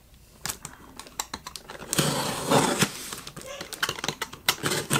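Product box being opened and its packaging handled: a run of small clicks and taps, with a brief scraping, rustling slide about two seconds in.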